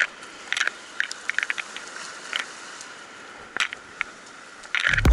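Scattered crunches and scrapes of boots stepping over rough, wet shoreline rock, over a steady hiss. Loud background music comes in near the end.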